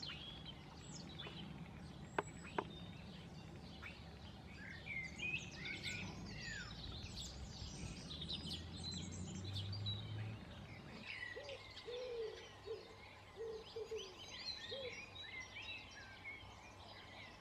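Garden songbirds chirping and singing in quick, varied high phrases, over a low background rumble that stops about eleven seconds in. Two sharp ticks come about two seconds in, and a short run of low hooting notes follows near the end.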